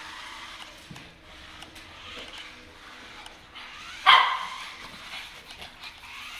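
A pug barks once, suddenly and loudly, about four seconds in.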